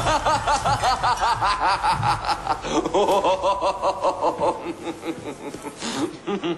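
A man laughing: a long run of rapid ha-ha-ha pulses, about five a second, that drops lower in pitch about three seconds in and tails off.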